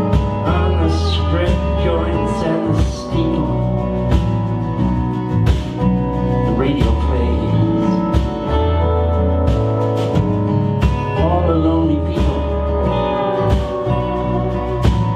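Live band playing an instrumental passage of a country-folk song: drum kit, electric bass and guitars, with gliding lead notes over the top.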